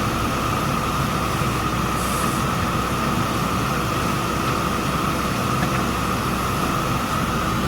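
JCB 3DX backhoe loader's diesel engine running steadily under a constant hiss, with no distinct knocks or changes.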